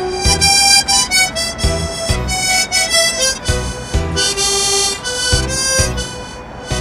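Harmonica playing a melody of held, reedy notes, over a backing accompaniment with a steady low beat.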